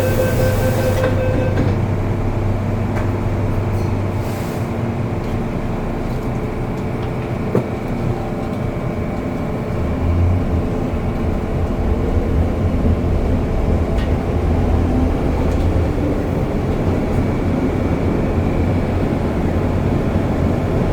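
MTR Kwun Tong Line M-Train running: the door-closing warning beeps end about a second in, then the train's motors and wheels rumble steadily as it gets under way, louder from about ten seconds in.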